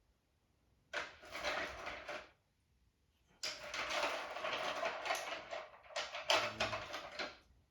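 Rummaging and handling noises as things are shifted and moved about, in two stretches, the second longer.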